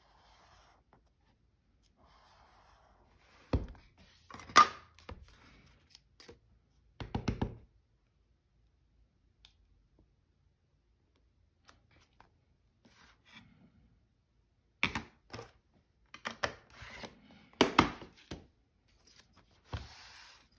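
Craft tools being handled on a desk: a clear acrylic stamp block and a plastic ruler set down and moved over a journal, giving a few sharp taps and knocks about four and seven seconds in and a quicker run of them from about fifteen seconds in, with light paper rustling between.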